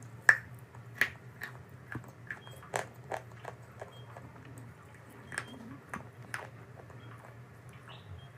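A person biting and chewing crunchy chalk, close to the microphone. Sharp crunches come roughly once a second, the loudest near the start, with softer chewing between them.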